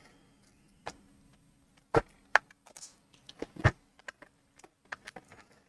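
A few light clicks and knocks from small cardboard packaging and a card being handled and set down on a table. The two loudest knocks come about two seconds in and again about three and a half seconds in.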